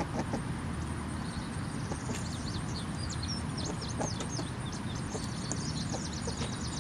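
Birds chirping in quick, high, short notes from about two seconds in, over a steady low rumble.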